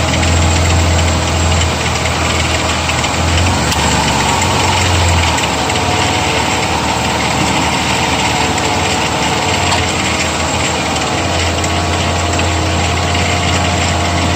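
Dodge Dakota pickup engine idling steadily while the repaired cooling system warms up and builds pressure. A low hum under it drops away about five seconds in and comes back near the end.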